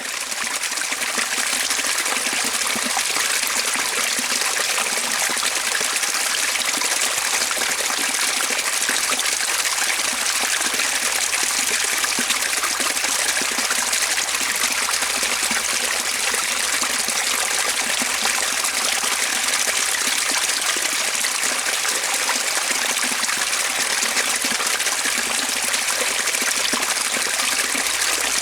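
Waterfall: falling water rushing and splashing in a steady, unbroken roar of white noise.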